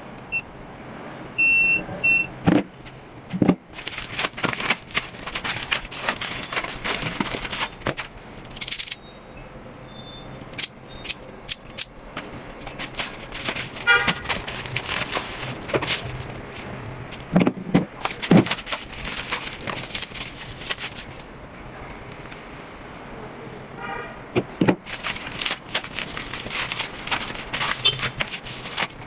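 Rustling and clicking of packaging and hand tools being handled and unpacked, with a few short high electronic beeps about two seconds in.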